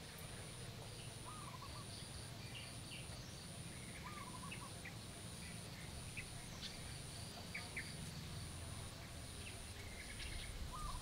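Birds calling: a short wavering call repeats about every three seconds among scattered chirps, over a steady low hum and a faint high tone pulsing about once a second.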